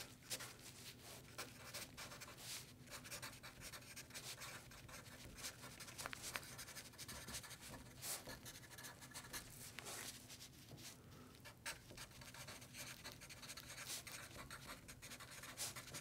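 Faint, irregular scratching and rustling, like a dry surface being rubbed or scratched, going on steadily.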